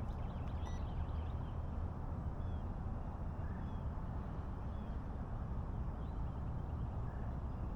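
Steady low rumbling noise with faint, short bird chirps scattered through it.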